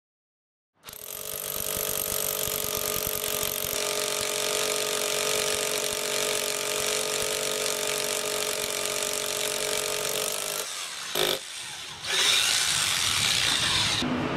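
Corded electric hammer drill boring into a bluestone slab, running steadily with a motor whine. It starts about a second in, breaks off briefly about eleven seconds in and starts again louder.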